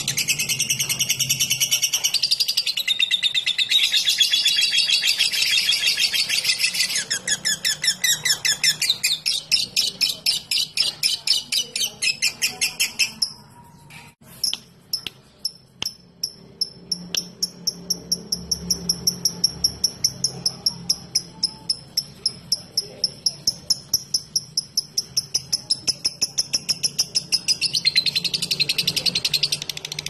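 Fischer's lovebird singing its long chattering 'ngekek' song. Dense shrill chatter turns about seven seconds in into a fast, even run of sharp ticking notes (the 'ngetik' typing sound). After a brief break near the middle, a long ticking series follows, and dense chatter returns near the end.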